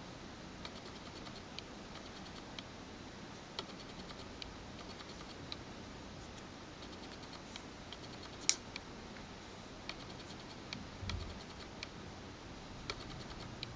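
Faint, irregular clicks and taps from a touchscreen smartphone being worked by hand, over a steady hiss. One sharper click comes about eight and a half seconds in, and a soft low thump around eleven seconds.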